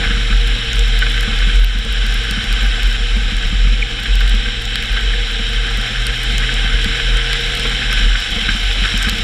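A car driving on a wet road: a steady engine drone under the hiss of tyres on wet pavement, the engine note dropping slightly about eight seconds in.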